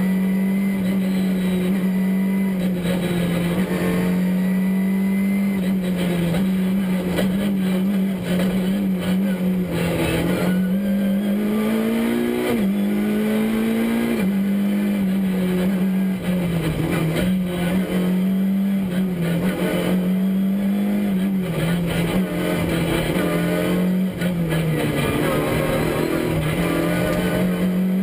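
Škoda Fabia R2 rally car's four-cylinder engine at full effort, heard from inside the cabin, its pitch held high and stepping down and climbing back several times as it is driven hard along a stage, with road and tyre noise underneath.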